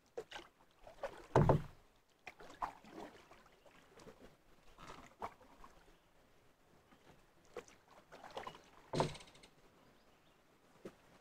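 Canoe paddle strokes in calm water: irregular dips and swishes, with two louder thumps about a second and a half in and near nine seconds.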